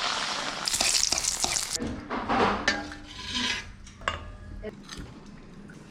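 Food frying in a hot pan for beef biryani, with loud sizzling about a second in that stops abruptly, then stirring and scraping with a spoon and a few clinks against the pan.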